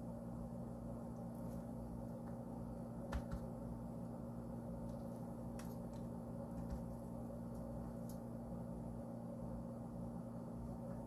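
Steady low hum of a running kitchen appliance, with a few faint clicks and taps as slices of ham are laid by hand on bread dough; the sharpest click comes about three seconds in.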